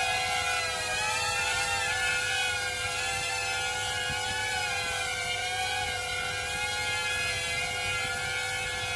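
XK X100 mini multicopter flying, its propellers giving a steady whine of several pitches that drift slowly up and down as the throttle shifts.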